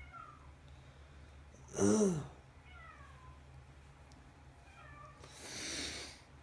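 A cat meows once, loudly, about two seconds in: a short call that rises and falls in pitch. Faint, short, high falling calls come and go around it. About five and a half seconds in there is a breathy rushing noise lasting about a second.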